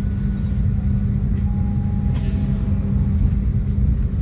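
Argo Wilis passenger train heard from inside its executive coach, pulling slowly away from a station stop: a steady low rumble and hum, with faint thin high whines and a light knock about two seconds in.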